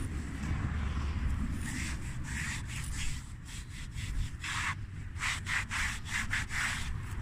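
Hand-washing strokes: a soapy sponge rubbing and scrubbing over the car's bodywork in a series of short, uneven swipes.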